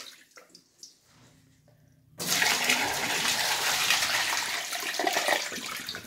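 Water rushing through a small homemade model toilet bowl and splashing into a bathtub: a flush that starts suddenly about two seconds in, runs for about three seconds, then tails off.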